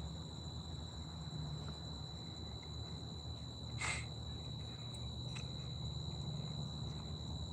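Crickets trilling steadily in a high, even tone, over a low rumble, with one brief knock about four seconds in.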